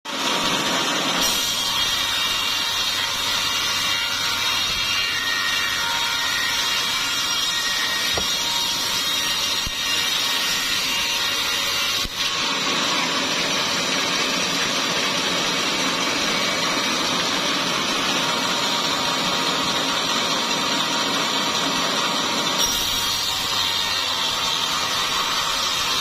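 Sawmill saw running and cutting through a small-leaf acacia log: a loud, steady sawing noise with a faint whine, its tone shifting about halfway through and again near the end.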